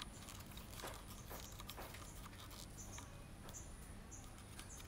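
Faint small clicks and scratchy ticks as the threaded metal tip of a pneumatic (air-pressure) shutter release cable is screwed into the shutter button socket of a Praktica BCX camera.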